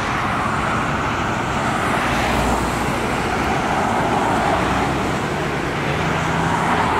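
Road traffic passing close by: a steady rush of car tyres and engines, with several cars swelling and fading as they drive past.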